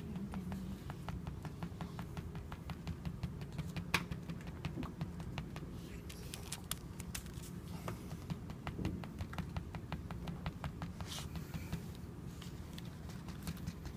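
An ink-rubbing pad dabbed lightly and quickly on thin paper over a carved seal stone, many soft taps a second, as an ink rubbing of the seal's side inscription is built up.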